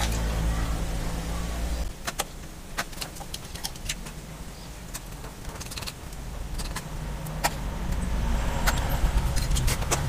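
A knife cutting through a strip of old tyre rubber on a wooden block, with scattered sharp clicks and scrapes. Under it runs a low steady engine-like hum that drops away about two seconds in and returns near the end.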